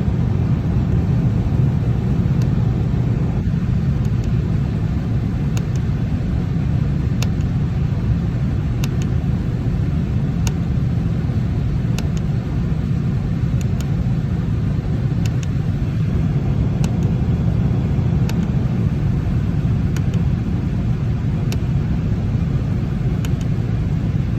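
Steady low rumble of the Lennox unit running, with faint clicks about every one and a half seconds as a button on its control board is pressed over and over to step through the settings.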